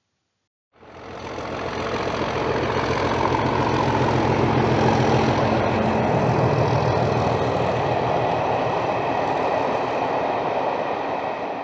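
Diesel locomotive engine running steadily, fading in about a second in.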